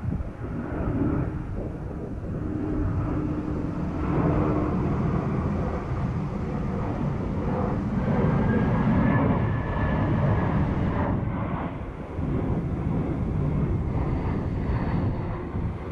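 Wind buffeting the microphone: a gusty low rumble that swells and eases over a few seconds.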